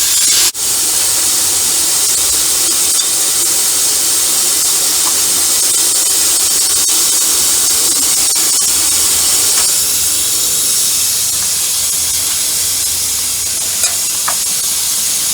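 Steady, loud hiss of a pressure washer spraying water, broken only by a brief dropout about half a second in.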